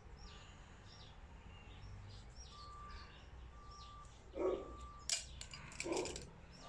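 Birds chirping, short high chirps repeating about every half second, with a brief level whistled note now and then. About four to six seconds in come two dull knocks and a sharp click, the loudest sounds here.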